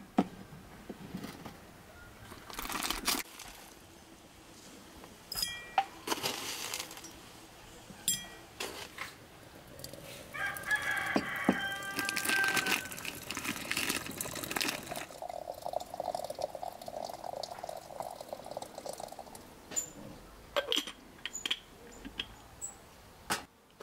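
A rooster crowing once, for about two seconds near the middle, among scattered knocks and clicks.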